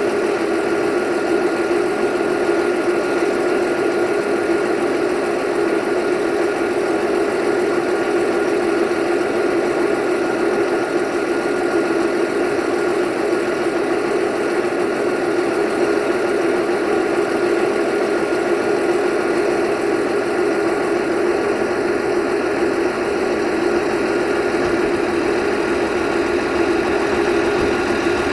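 Diesel train engine running steadily: an even drone that holds the same pitch and loudness throughout, with a faint steady whine above it.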